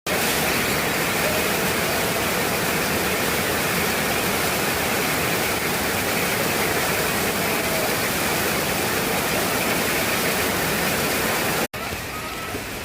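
Heavy rain falling, a steady dense hiss. It cuts out for an instant near the end and goes on a little quieter.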